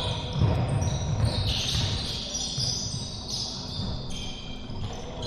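Basketball scrimmage in a gym: a ball bouncing on the hardwood court, with short high sneaker squeaks.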